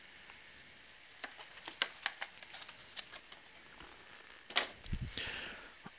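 Quiet handling sounds: a scatter of light, irregular clicks and taps, then a single knock and a short scraping rustle about five seconds in.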